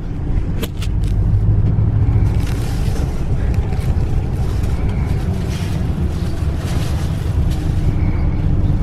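Bus engine and road noise heard from inside the cabin while it drives: a steady low rumble with a couple of sharp clicks near the start.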